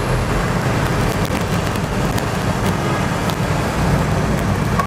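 Steady engine and road noise of a car driving through city traffic, heard from inside the moving car.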